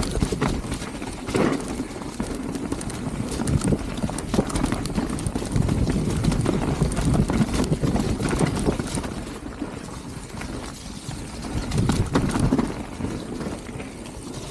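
Mountain bike descending a muddy trail: a steady run of irregular knocks and clatter as the bike jolts over rough ground, with the tyres rolling on wet dirt.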